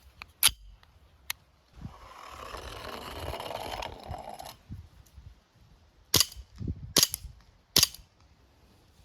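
A clay pigeon rolls noisily for about two and a half seconds, then a Colt M45 CQBP CO2 BB pistol fires three sharp shots, a little under a second apart.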